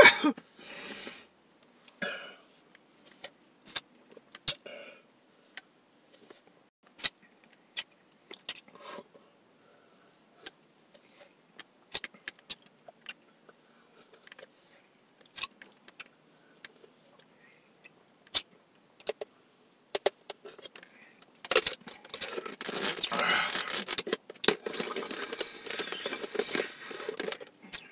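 Scattered small clicks and taps of a plastic slushie cup, lid and straw being handled. About three-quarters of the way in, several seconds of dense rattling and scraping of icy slush in the cup begin.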